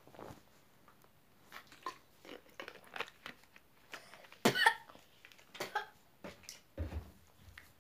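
Short coughs and small mouth and swallowing noises from a boy reacting to a piece of raw garlic in his mouth. The loudest is a sharp cough about four and a half seconds in.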